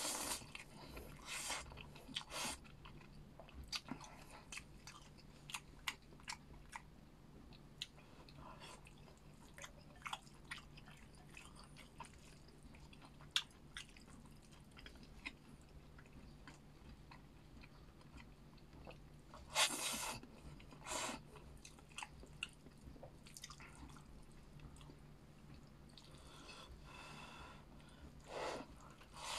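Close-up chewing and eating sounds: many small wet mouth clicks and smacks, with a few louder bursts of slurping or biting, the loudest about two-thirds of the way through. A low steady hum runs underneath.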